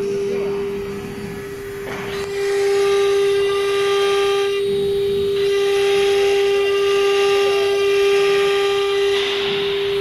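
A CNC router's 3.0 kW water-cooled spindle whines at a steady high pitch. About two seconds in, the bit starts cutting into the MDF board and the sound turns louder and harsher. The cutting sound dips briefly twice.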